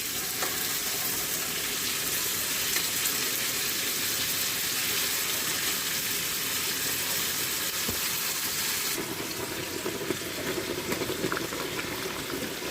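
Pork belly sizzling in a frying pan, a steady hiss. About nine seconds in it turns lower and more crackly, with scattered small pops.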